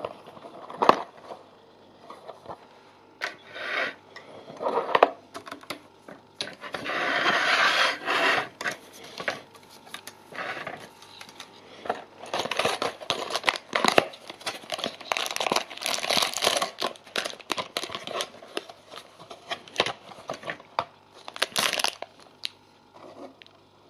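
Packaging of a small building-brick set being opened and handled: tearing and crinkling of the packaging, with a long stretch of tearing or rustling early on, and scattered clicks and knocks as the box and the plastic bag of bricks are moved about.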